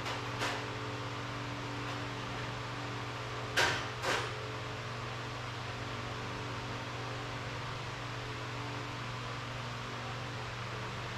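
Steady machine hum, with a few sharp knocks over it: two soft ones right at the start and two louder ones about three and a half and four seconds in.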